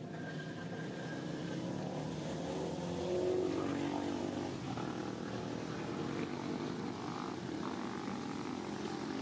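An engine running steadily, swelling to its loudest about three seconds in and then holding.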